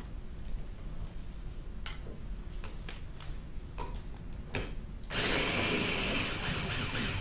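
EuroPro Ninja chopper's motor running steadily, blending mango chutney and a scotch bonnet pepper into a glaze. It starts suddenly about five seconds in, after a few light clicks from fitting the jar and motor head.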